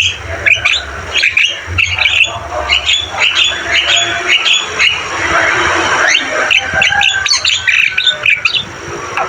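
Javan myna calling in a rapid, unbroken run of harsh squawks, chatters and chirps.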